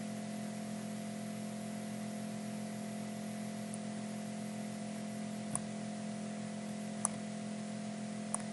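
Computer mouse clicked three times, single clicks in the second half, over a steady hiss and low hum of background noise.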